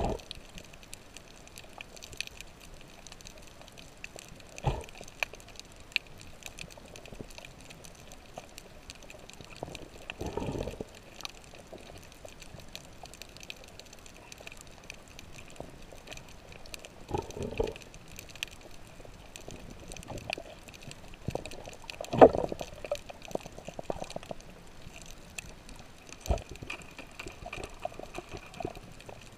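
Water noise recorded by a GoPro in its underwater housing: a steady faint crackle, with about six short louder bursts of moving water spaced several seconds apart, the loudest about two-thirds of the way through.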